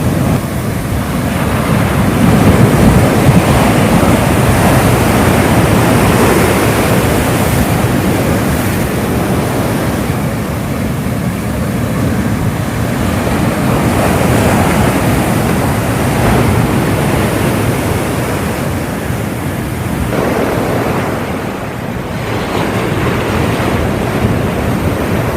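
Heavy rain pouring steadily under a cyclone, with wind gusting on the microphone; the noise swells and eases over several seconds at a time.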